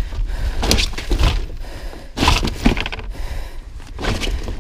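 Handling noise: irregular rustles and knocks as a collapsible metal landing-net handle is worked by hand, over a steady low wind rumble on the microphone.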